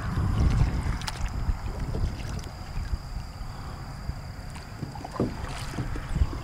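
A paddle stroking through calm water beside a small aluminum boat, with a low rumble that is loudest in the first second and a few sharp clicks.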